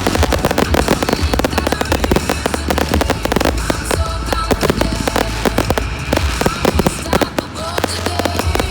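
A fireworks display firing fast: a dense run of bangs and crackles, many reports a second, with pop music playing underneath.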